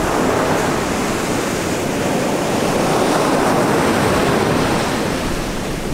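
Ocean surf breaking and washing up the beach, swelling about halfway through and easing off near the end.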